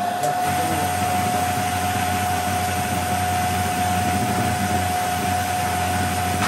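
Household vacuum cleaner running: a steady motor whine over a rush of air. It is clogged and sucks poorly.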